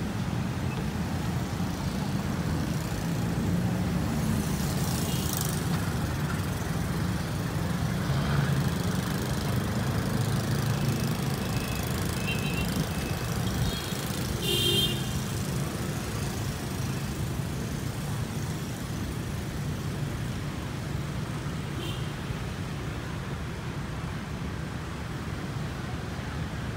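Steady noise of city street traffic, with vehicles running and passing.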